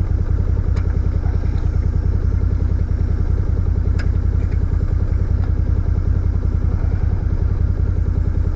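Engine of the machine towing an old disc harrow, running steadily under load with an even, rapid pulse, and a few light clicks over it.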